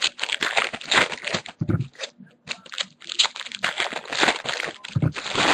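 A trading-card pack's foil wrapper being torn open and crinkled by hand, with the cards handled, as a dense run of crackles. Two short low thumps come about a second and a half in and again near the end.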